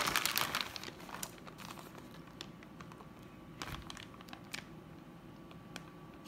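Hands scattering and pressing shredded cheese onto a casserole in a parchment-lined baking tray: a crinkly rustle of cheese and paper, loudest in the first second, then scattered light crackles and taps.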